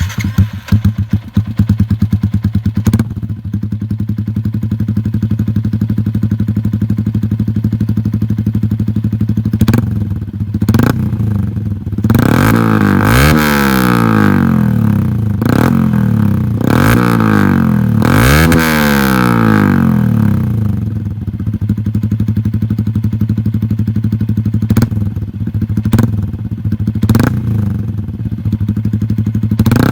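Yamaha Sniper 150's single-cylinder four-stroke engine through an SC Project exhaust with its silencer insert removed, idling steadily, then blipped through several sharp revs in the middle before settling back to idle with a few small blips.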